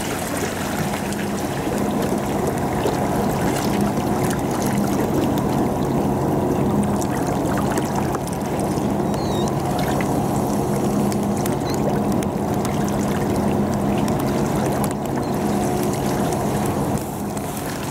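Steady low mechanical hum, like an engine running, with light rain tapping over it.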